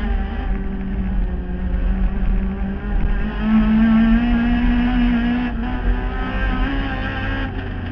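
Race car engine running hard at high revs, heard from inside the car. The engine note climbs and screams through the middle, with two brief dips late on.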